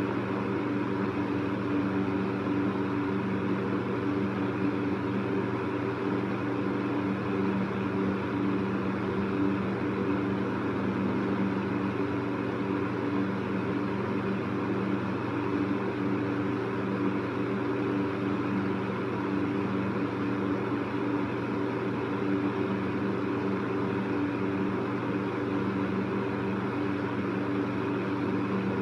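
Electric fan running steadily: an even rush of air over a low, constant motor hum.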